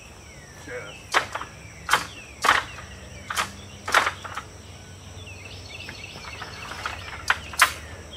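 About eight sharp clicks and clacks from an RV awning's metal support arm as its release is worked and the arm is pulled out to let it drop fully down, about three in quick succession near the end. Birds chirp faintly, over a steady high insect drone.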